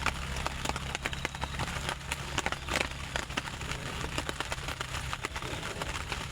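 Wood campfire crackling, with many irregular small snaps and pops over a low steady rumble.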